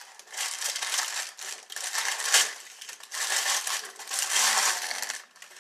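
Packing paper rustling and crinkling in repeated bursts as it is handled and pulled off, with one sharp tap about two and a half seconds in.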